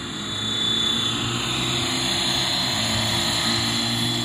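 Radio-controlled MD500 scale model helicopter flying low, its motor and rotor running with a steady high whine; it grows louder about half a second in.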